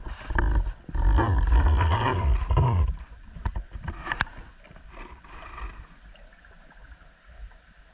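Muffled underwater rushing and rumbling of water moving over a housed camera as a freediver swims, loudest for about two seconds near the start, followed by a few sharp clicks and a fainter wash of water noise.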